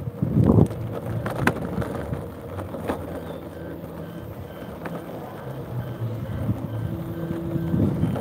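Hoverboard's electric wheel motors humming steadily as it rolls over rough ground, with a few sharp knocks, the loudest about half a second in.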